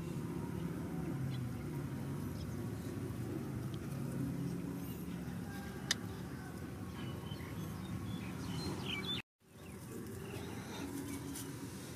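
Outdoor ambience: a steady low rumble with a single sharp click about six seconds in and a few short high chirps a little later, then the sound cuts out completely for a moment about nine seconds in.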